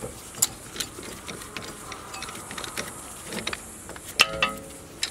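Metal brake parts being handled: irregular clicks and knocks as a rear disc-brake caliper and its bracket are worked by hand, with one louder metallic clank about four seconds in that rings briefly.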